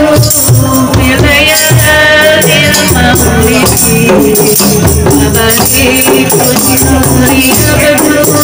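Qasidah music: a woman sings into a microphone over a group of women beating rebana frame drums in a steady rhythm, with a jingling rattle among the drums.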